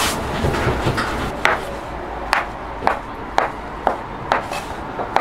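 A kitchen knife cuts a log of hotteok dough into portions on a wooden board, and each cut ends in a sharp knock of the blade on the wood, about twice a second, starting about a second and a half in. Before that, there is a soft rubbing as hands roll the dough on the board.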